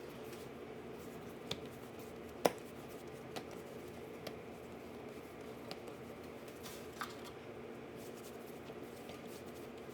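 Quiet handling of risen naan dough on a work surface: soft handling noise with a few scattered light clicks and taps, the sharpest about two and a half seconds in, over a steady low hum.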